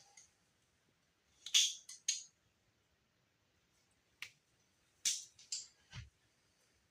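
Hands handling wires and small parts: a few short rustles and clicks, with a dull knock about six seconds in.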